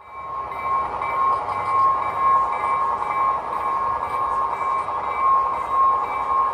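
Sound from model diesel locomotives' onboard sound systems: a locomotive bell ringing steadily about twice a second over the diesel engine sound, as the models move during switching.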